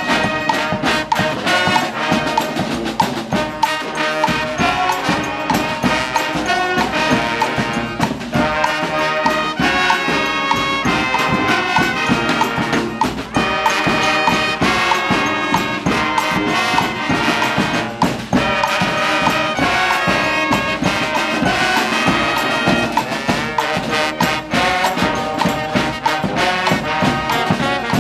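Community street brass band playing live: trumpets and trombones carrying a tune together, steadily and without a break.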